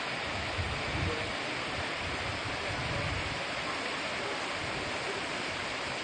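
Waterfall pouring down a rock slab into a pool: a steady rush of falling water.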